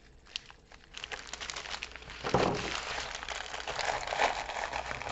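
Crinkling of a diamond painting kit's plastic and paper packaging as it is handled: the bagged drill packets are put down and the rolled canvas is picked up and unwrapped. It starts about a second in and grows louder about two seconds in, with one soft thump.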